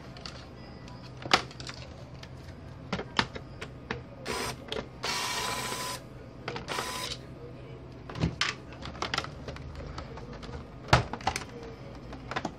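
Hard plastic clicks and knocks from a laptop chassis being flipped and handled as it is taken apart. Near the middle, a small powered screwdriver whirs in three short spurts, the longest about a second, backing out a screw on the laptop's underside.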